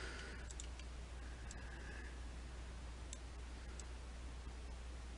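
A few faint, scattered computer mouse clicks over steady microphone hiss and a low hum.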